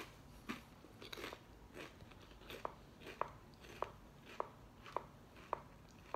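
Faint close-up chewing of a crunchy chili-lime tortilla chip: a few crunches in the first two seconds, then soft, regular clicks about every 0.6 seconds from the jaw working with each chew.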